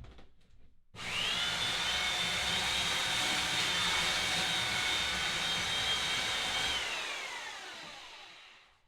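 A high-speed electric motor switches on about a second in and runs steadily with a high whine. Shortly before the seven-second mark it is switched off and winds down over about two seconds, its whine falling in pitch as it coasts to a stop.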